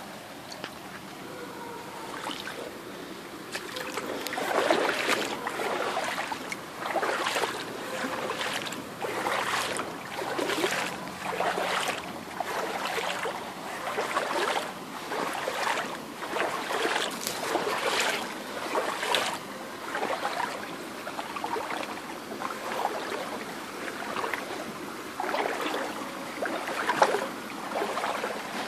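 Rubber boots wading through a shallow creek, a splashing slosh with each step about once a second, starting a few seconds in, over the steady trickle of the water.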